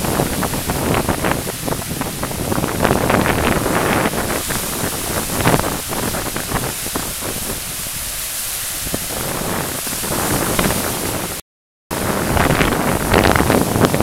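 Wind-driven waves breaking and washing in a strong wind, surging again and again, with wind buffeting the microphone. The sound cuts out completely for about half a second near the end.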